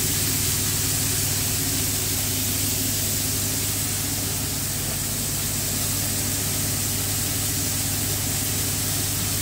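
Cooker-hood extractor fan running steadily with a low hum and an even rush of air, over the sizzle of pork slices frying in oil in two pans.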